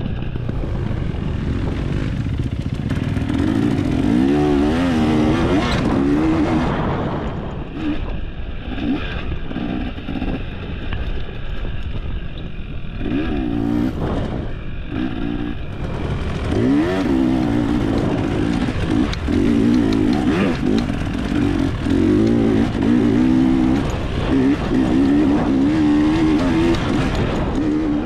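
Dirt bike engine being ridden hard, its pitch rising and falling over and over as the throttle is worked, easing off somewhat for several seconds in the middle.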